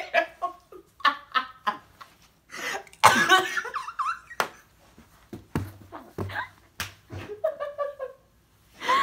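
A man and a woman laughing hard in fits, with coughs and breathy bursts between them. The loudest burst comes about three seconds in.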